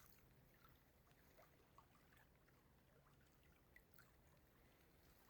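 Near silence: faint outdoor room tone with a few tiny ticks.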